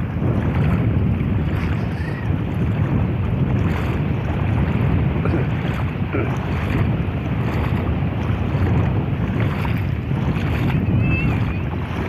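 Steady wind buffeting the microphone over small waves washing in shallow sea water. A brief faint chirp comes near the end.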